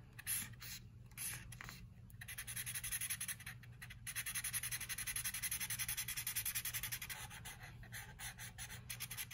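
Felt-tip marker drawing on a paper plate: a few separate strokes, then from about two seconds in a fast, even back-and-forth scribbling for about five seconds as one small square is filled in solid black, with a few looser strokes near the end.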